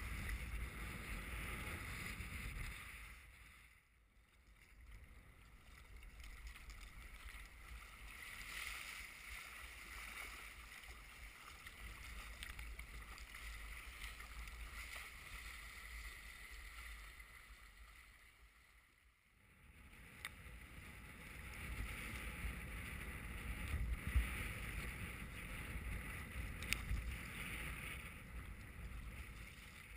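Wind buffeting the microphone and waves splashing and rushing against a sea kayak's hull in choppy water. The noise drops away briefly about four seconds in and again about nineteen seconds in, and a few small clicks come near the end.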